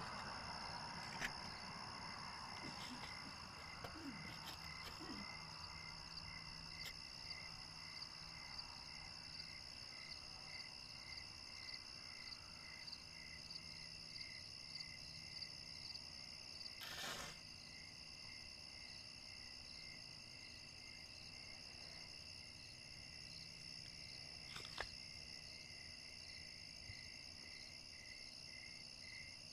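Faint crickets and other insects chirping steadily, with one call pulsing evenly. A short burst of noise about halfway through and a single click near the end.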